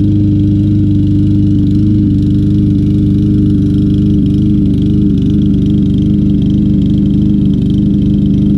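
Briggs & Stratton 625EX 150cc single-cylinder engine on a walk-behind lawn mower running steadily at a constant speed, with a slight waver. It is burning through old, stale gas after sitting a long time.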